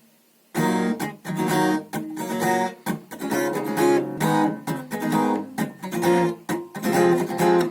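Acoustic guitar strummed in a rhythmic strumming pattern, starting about half a second in, with short damped breaks between the strokes.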